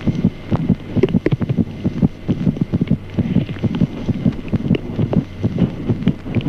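Fetal heart sounds: a rapid, even run of short heartbeats, with the mother's pulse underneath as a soft whooshing like a systolic murmur.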